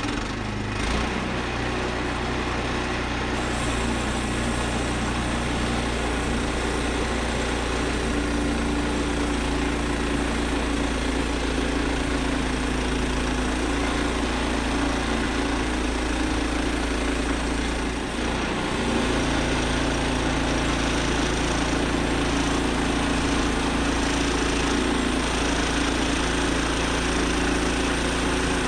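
Small gasoline engine of a Woodland Mills HM122 portable bandsaw mill running steadily, with a brief dip in the sound about two-thirds of the way through.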